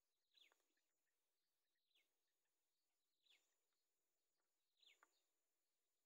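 Very faint short chirping calls from a heron-family nestling, four of them about every second and a half, each sliding down in pitch.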